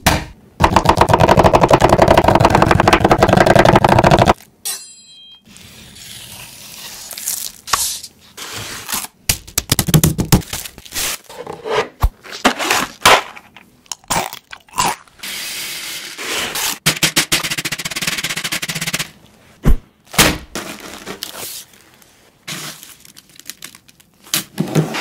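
Hands-on food-prep sounds on a wooden cutting board. It opens with a loud, fast run of blows lasting about four seconds as a raw chicken breast is pounded flat. Scattered knocks, scrapes and rubbing follow, and near the end comes the crunch of dry breadcrumbs squeezed in a gloved hand.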